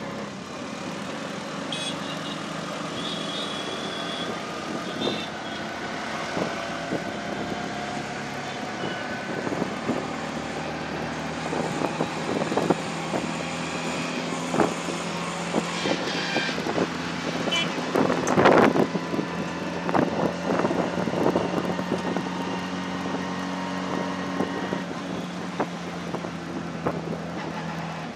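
Auto-rickshaw engine running steadily under way, heard from inside the open passenger cabin, with road noise and scattered knocks and rattles from the body; the loudest knocks come about two-thirds of the way in.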